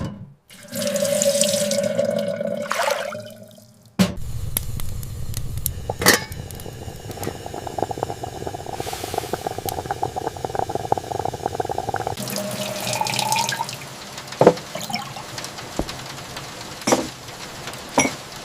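Water running from a tap, with a few light knocks.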